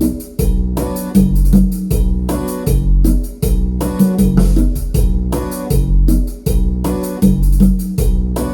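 Yamaha Genos arranger keyboard playing back a cumbia accompaniment style: a heavy bass line repeating about once a second under sustained chords in a steady rhythm.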